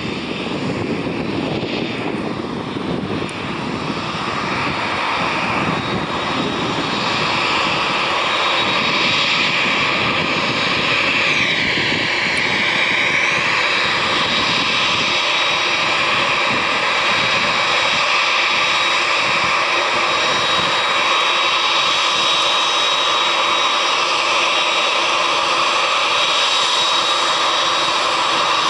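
Air Canada Boeing 787's GEnx turbofan engines at taxi power: a steady jet whine with a high thin tone, growing louder over the first several seconds as the airliner taxis closer. About twelve seconds in, the whine's tone sweeps briefly down and back up.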